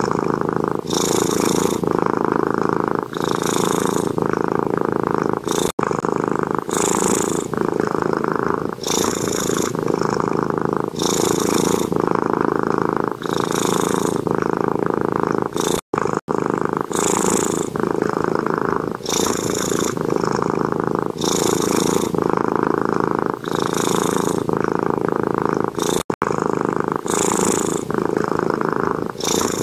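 A cat purring loudly and steadily, rising and falling with each breath in a regular cycle about every two seconds, with three brief dropouts.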